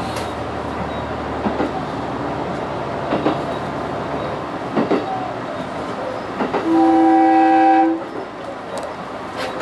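Train running on the rails, heard from inside the driver's cab, with occasional clicks as the wheels pass rail joints. About two-thirds of the way through, the train's horn sounds once, a steady tone lasting a little over a second.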